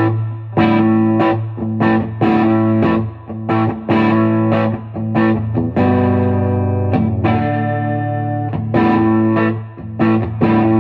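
Gibson Les Paul Studio electric guitar through a 5881-valve Marshall JTM30 amp turned up into distortion: a run of hard-picked, overdriven chords, loud and punchy, with one chord held for about a second near the middle. The amp is working again after its dead rectifier was replaced.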